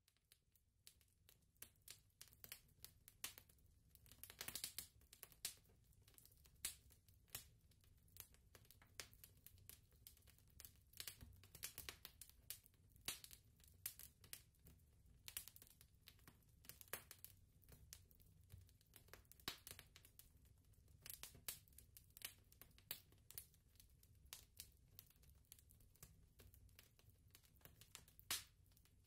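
Faint, irregular crackling clicks, a few a second and sometimes in quick clusters, over a low steady hum.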